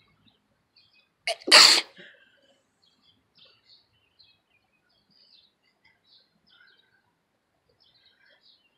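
One loud human sneeze about a second and a half in: a brief sharp onset, then the main blast lasting about half a second.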